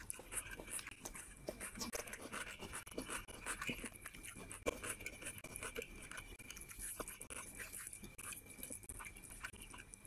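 Close-miked eating by hand: fingers squishing and mixing rice with curry on a plate, and chewing with wet mouth smacks, as a steady stream of small irregular clicks.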